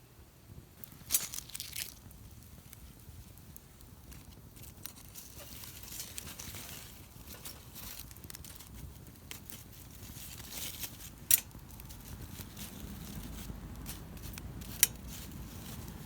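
Firewood burning in a campfire, crackling steadily with a few sharp pops, one about a second in and two more near the end.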